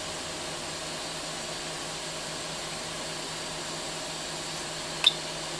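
Quick 861DW hot air rework station's blower fan running steadily on a freshly repaired impeller, blowing hot air out of the handpiece as an even, quiet hiss with a faint hum. One short beep near the end.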